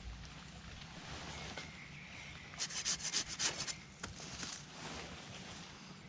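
Quick runs of scraping, rubbing strokes: about a second of rapid strokes a little past the middle, then a shorter run just after.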